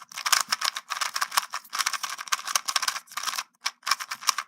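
GAN 249 V2 2x2 speedcube being turned rapidly by hand: quick runs of plastic clicking and clacking, with brief pauses between runs.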